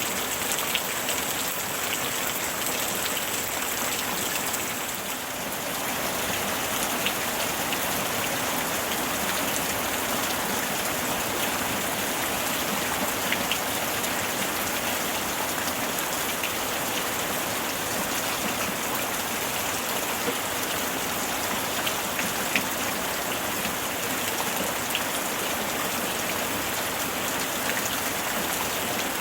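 Steady summer rain falling, with individual drops ticking on a surface now and then. The level dips briefly about five seconds in.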